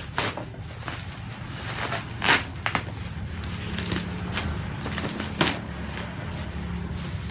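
Box packaging being pulled and handled during an unboxing: scattered crackles and a few sharp rustles, the loudest about two seconds in and again near five seconds, over a low steady hum.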